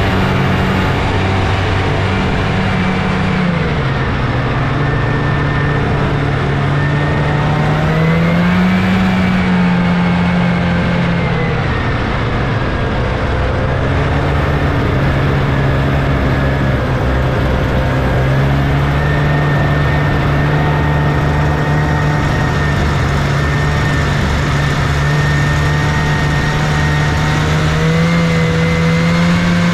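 A 1979 Scorpion Whip snowmobile's Cuyuna 440 two-stroke twin engine running under way, loud and continuous. Its revs rise and fall with the throttle, climbing about a third of the way in, easing off again, and climbing once more near the end.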